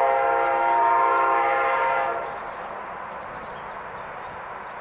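CSX diesel freight locomotive's air horn sounding one long multi-note chord for the grade crossing, cutting off about two seconds in. A steady rumble of the approaching train follows.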